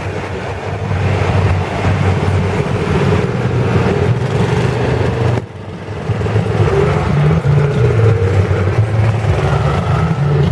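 Several vintage tractor engines running as the tractors drive slowly past one after another, the engine note changing as each one goes by. The sound dips briefly about five and a half seconds in.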